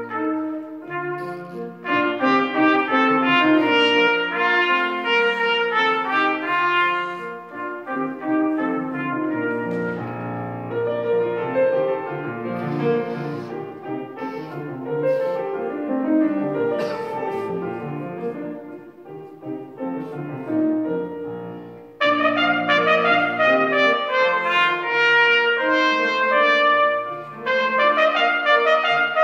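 Solo trumpet playing a classical piece with grand piano accompaniment. The trumpet drops out for a stretch in the middle while the piano plays on, then comes back in loudly and brightly about 22 seconds in.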